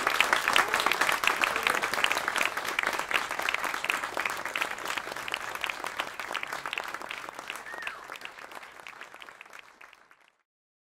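Audience applauding, the clapping slowly thinning out and fading away to nothing about ten seconds in.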